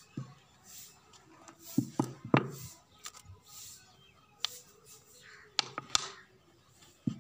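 Plastic soft-drink bottle being twisted and wiggled loose from packed sawdust inside a clay stove. Handling gives a handful of sharp crackles and knocks with faint scraping between them.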